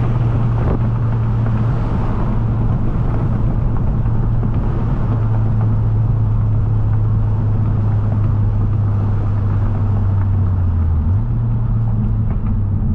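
Honda Civic Si's 1.5-litre turbocharged four-cylinder engine, fitted with an aftermarket turbo inlet pipe, droning steadily under way with road noise beneath it, as heard inside the car. The engine note drops in pitch about eleven seconds in.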